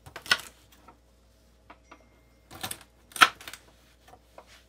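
Large kitchen knife chopping through a bunch of raw asparagus spears: a few crisp, sudden cuts with the blade knocking the cutting surface, the loudest about three seconds in.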